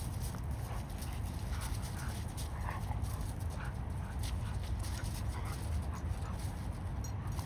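Dogs playing, with short yelps and whimpers scattered through, over a steady low rumble.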